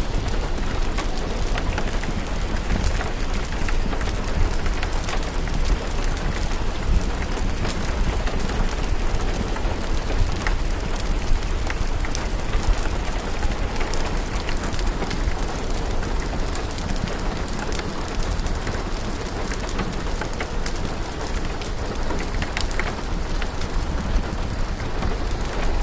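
Steady rain mixed with a crackling fire: many small sharp pops scattered over an even hiss and a steady low rumble.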